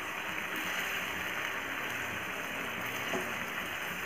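Paneer and potato curry sizzling and bubbling in a kadai just after a cup of water has been poured in, stirred with a spatula. There is a light knock about three seconds in.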